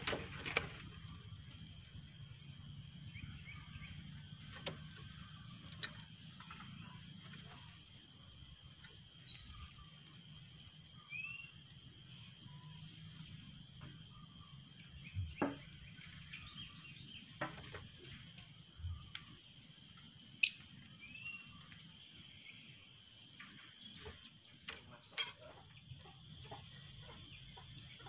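Quiet outdoor background: a steady high whine, a few faint short bird chirps, and scattered light clicks and knocks.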